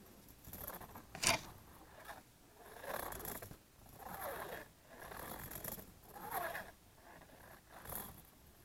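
A run of about six short scraping, rustling sounds, each half a second to a second long, with one sharp click a little over a second in.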